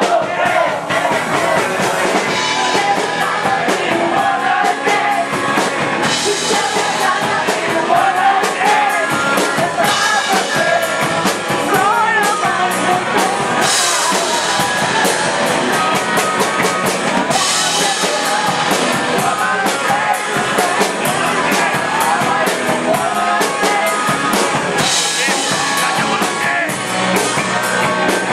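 A rock band playing: drum kit and guitar with a singing voice.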